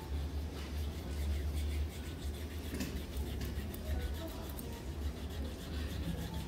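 A steady low hum with faint rubbing of hands on skin as a foot is massaged.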